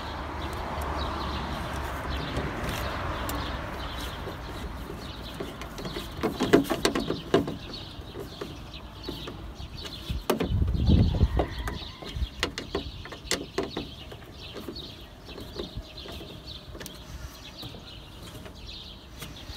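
Hand-tool work on a car door's lock mechanism: a screwdriver and fingers clicking and knocking on the plastic lock housing and metal door panel. The handling is loudest around six to seven seconds in and again around ten to eleven seconds in.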